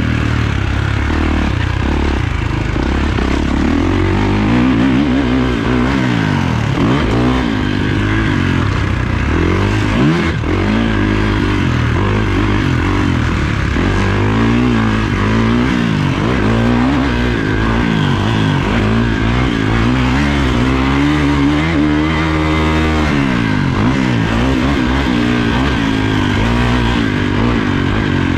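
Kawasaki motocross bike's engine, heard onboard, revving up and falling back over and over as the rider works the throttle around the track, with one longer climb and drop about two-thirds of the way through.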